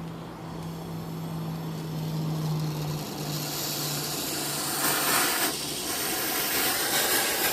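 Brazing torch flame hissing, growing louder from about three seconds in. A steady low hum runs under it and fades out around four seconds.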